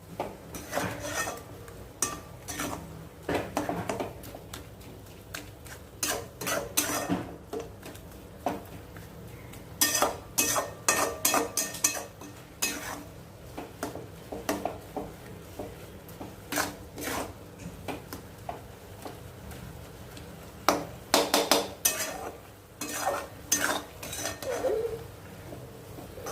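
A spatula scraping and knocking against a kadhai in irregular strokes as a grated coconut, milk and sugar mixture is stirred, kept moving until the sugar melts so the mixture doesn't clump into a lump.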